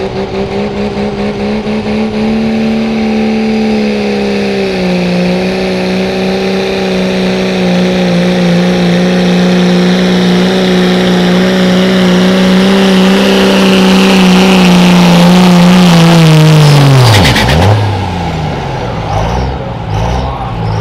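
Dodge Ram diesel pickup engine running hard at full load while pulling a weight-transfer sled, a steady engine note with a high whine above it that steps down slightly about five seconds in. Near the end the engine note falls away sharply as the pull ends, followed by a few short blips of the throttle.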